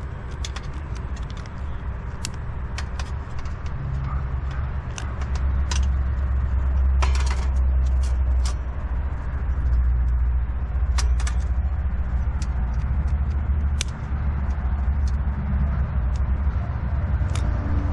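Charcoal burning as it is lit for a grill: a steady low rumble that grows stronger about five seconds in, with scattered sharp crackles and pops.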